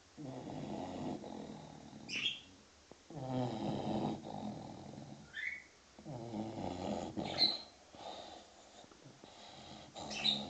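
English bulldog puppy snoring in its sleep: three long snores about three seconds apart. Short high bird chirps fall between the snores.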